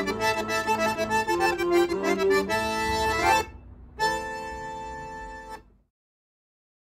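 Piano accordion playing a tune in chords. The tune breaks off about three and a half seconds in, and after a short pause one final chord is held for about a second and a half, then cut off.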